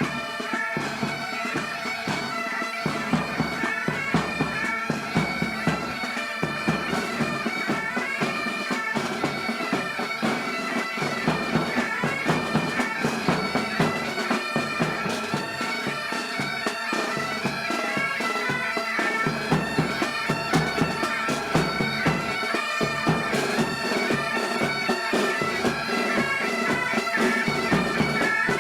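Bagpipes playing a tune over a steady held drone, with a regular beat about twice a second.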